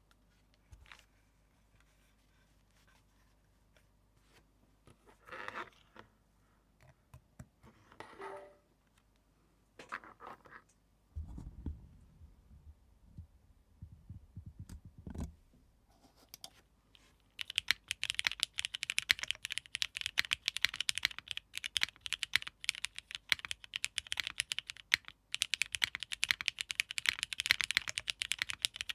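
Scattered handling noises (a few scrapes and low thumps) from a 60% mechanical keyboard, then, a bit past halfway, fast continuous typing on it: a soldered, plateless Arc60 with lubed, filmed, spring-swapped Cherry MX Nixie switches, with one short pause in the typing.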